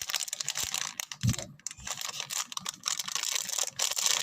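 Crinkly plastic packaging of a squishy toy being handled, giving a dense, irregular crackle, with a soft thump about a second in.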